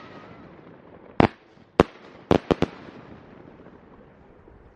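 Fireworks going off: a sharp bang about a second in, then four more in quick succession over the next second and a half, with a fading crackling hiss between them.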